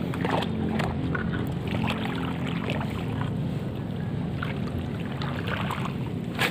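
A steady mechanical hum with scattered short rustling sounds over it.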